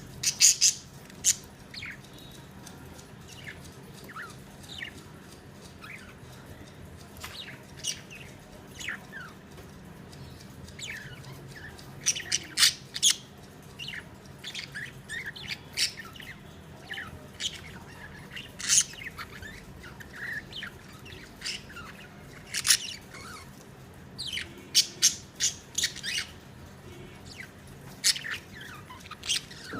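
Pet budgerigars chirping and squawking in short, sharp calls that come in quick clusters, some louder than others.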